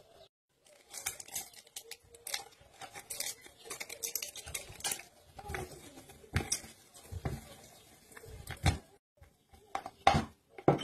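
Metal potato masher crushing boiled potatoes in a plastic bowl: a run of irregular soft squashing knocks and clicks as the masher plate strikes the potatoes and the bowl, with a few louder knocks near the end.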